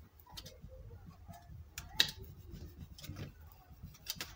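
Bone folder pressing and rubbing inside a folded cardstock box, giving faint scraping and a few small clicks, with one sharper click about two seconds in.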